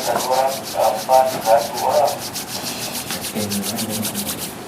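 Rapid, rhythmic rubbing, about eight strokes a second, with a person's pitched, voice-like sound over it in the first two seconds.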